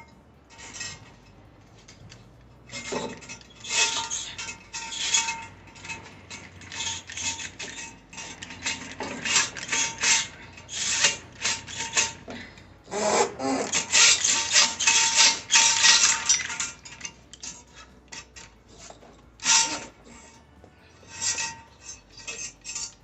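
A drain snake's cable being fed and worked through the porcelain trap of a removed toilet, scraping and rattling in irregular bursts as it hunts for an object lodged in the trap.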